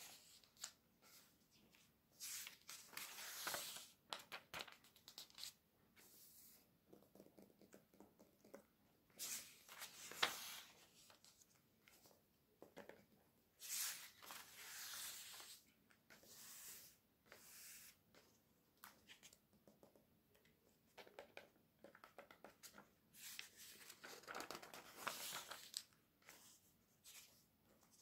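Glossy magazine pages being turned by hand: soft rustling and crinkling of paper in several bursts a few seconds apart, with quieter brushing of the hand over the pages in between.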